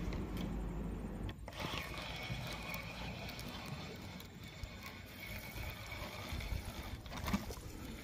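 Spinning reel being cranked, a faint steady whirr, as a small hooked barramundi is reeled in.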